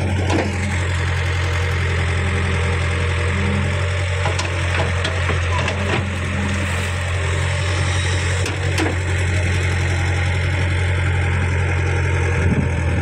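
Caterpillar E70B hydraulic excavator's diesel engine running with a steady deep hum, with a few faint clicks over it.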